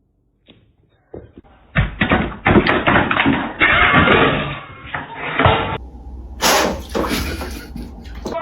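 A quick run of knocks, bangs and thumps, starting about a second in after a silent pause, followed by a brief hiss near the end.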